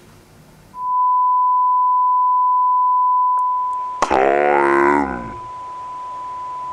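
Steady 1 kHz test-tone beep of a TV colour-bar test card, starting about a second in: the signal that a channel is off the air. From about four seconds in, a warbling pitched sound with many overtones plays over the tone, which carries on more quietly underneath.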